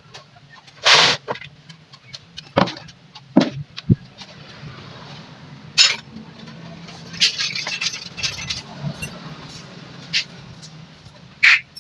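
Scattered metallic clinks and knocks of tools and motorcycle parts being handled, about ten sharp strikes spread unevenly, some ringing briefly, over a faint low hum.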